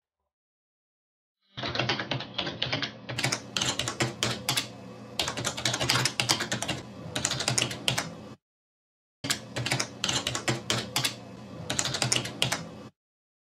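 Rapid computer-keyboard typing used as a sound effect, starting about a second and a half in, in two runs with a brief pause near the middle.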